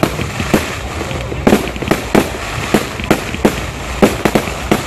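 Fireworks bursting: an irregular string of about a dozen sharp bangs, coming faster near the end.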